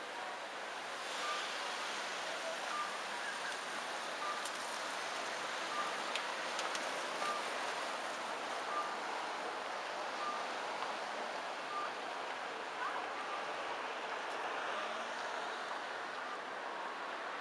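Steady city street ambience: the hiss of traffic with some wind noise, and a faint short beep repeating about every second and a half.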